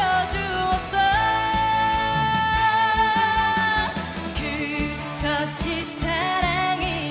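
A woman singing a trot song over an accompaniment with a steady drum beat, holding one long note for about three seconds about a second in, then going on into the next phrase with vibrato.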